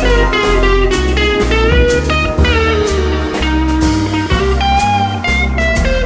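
Background music: a blues-style guitar melody with gliding notes over a steady bass and drum beat.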